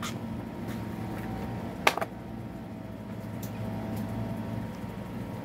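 Steady low background hum, with one sharp click about two seconds in.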